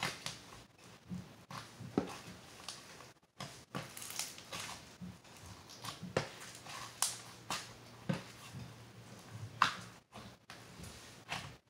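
Slime being squished and poked by hand, giving irregular short sticky clicks and pops, about one or two a second.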